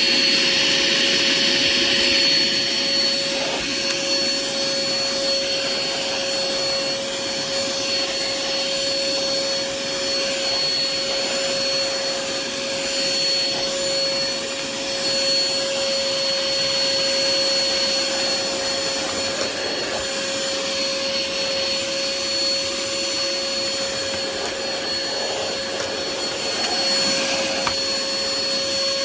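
Hoover ONEPWR Evolve Pet Elite cordless stick vacuum running steadily at full speed, its motor giving a steady hum with a high, even whine.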